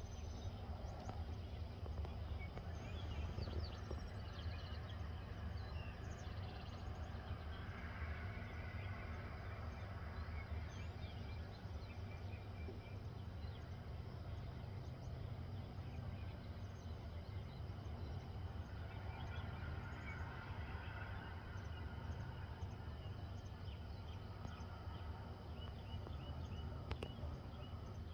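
Outdoor morning birdsong: many birds chirping and calling at once, over a steady low rumble.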